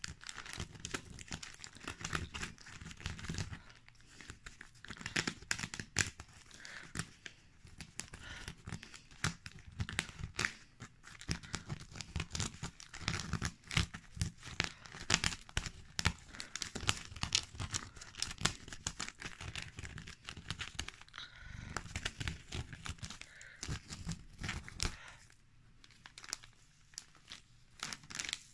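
A glossy paper advertising flyer crinkling and rustling under fingers as mashed strawberry pulp is pressed and dabbed onto it: a dense run of small irregular crackles that thins out a few seconds before the end.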